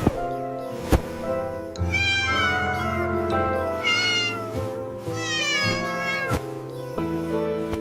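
Kitten meowing several times, high and drawn out, over background music.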